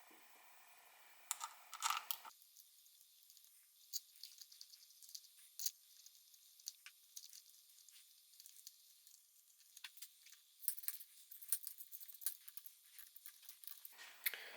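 Faint, scattered clicks and light taps of hand tools and small metal parts being handled during engine assembly, busier in the last few seconds.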